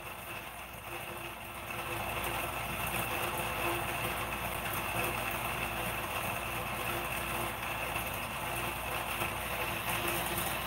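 A steady mechanical hum, a little louder from about two seconds in.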